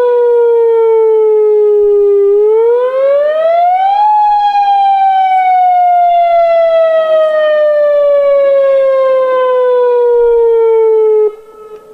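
Newly installed outdoor warning siren being tested. One loud wailing tone sinks slowly, climbs for about two seconds, then sinks slowly again before cutting off abruptly near the end, leaving a brief echo.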